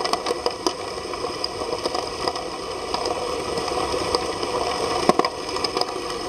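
Dragflow submersible agitator dredge pump running, heard underwater: a steady mechanical hum with a few held tones, broken by frequent sharp clicks and ticks.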